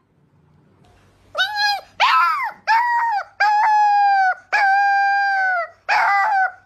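Husky-type puppy howling: a run of about six howls starting a little over a second in, mostly held on one pitch, the middle ones about a second long, some falling away at the end.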